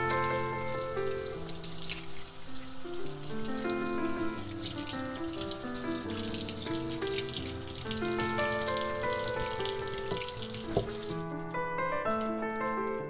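Tap water running into a stainless-steel sink and splashing over green garlic stalks being rinsed by hand. The water cuts off near the end.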